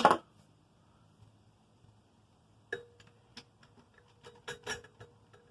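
A scattered run of light clicks and taps in the second half, from screws and metal fan hardware being handled while a ceiling fan is taken apart.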